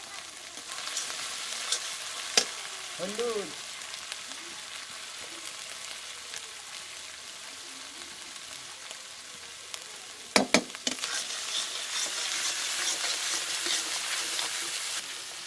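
Onion and spice masala sizzling in mustard oil in a steel kadai, with a metal spatula knocking sharply against the pan about two seconds in and twice about ten seconds in. The sizzle grows louder over the last few seconds as the masala is stirred.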